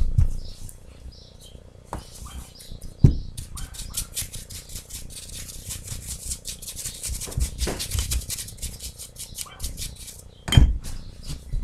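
Paintbrush dabbing paint onto a hard, textured craft figure: a dense run of fine, scratchy clicks through the middle, with two heavy knocks, one about three seconds in and a louder one near the end as the figure is handled.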